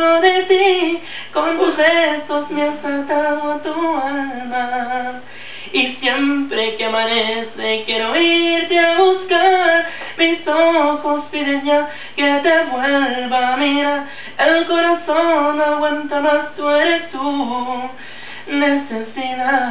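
A single voice singing a slow song unaccompanied, gliding between notes and holding long ones.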